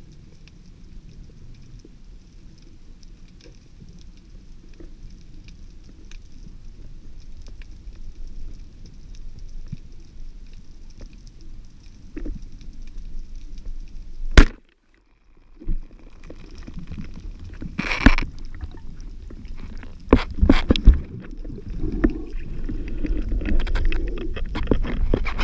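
Underwater sound through an action camera's waterproof housing: a low steady rumble, then a sharp click about halfway through followed by a second of silence. After that the water noise gets louder and more broken, with clicks and sloshing as the diver swims just under the wavy surface.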